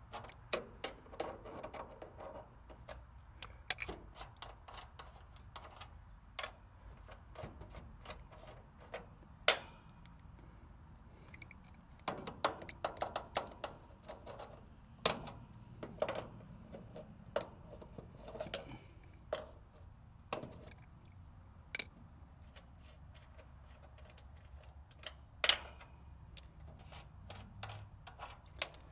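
Small metal tools and fittings clinking and clicking as they are handled, in scattered sharp taps over a low background hum.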